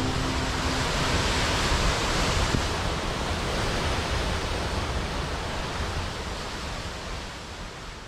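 Steady rushing water of a waterfall, fading out over the last few seconds; the last harp notes die away at the very start.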